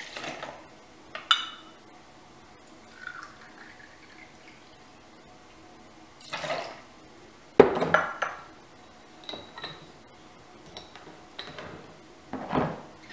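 Vodka poured from a glass bottle into a metal jigger and tipped into a stainless steel cocktail shaker over ice: short splashes of pouring with a few clinks and knocks of metal and glass, some ringing briefly. The sharpest knock comes a little past halfway.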